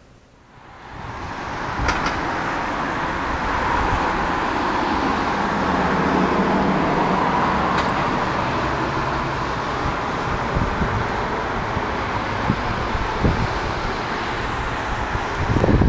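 A steady rushing noise that swells up over the first second or two and then holds evenly, with a few faint clicks and a louder low thump at the very end.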